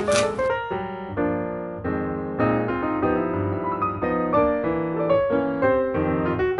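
Background piano music: a run of notes and chords changing every fraction of a second.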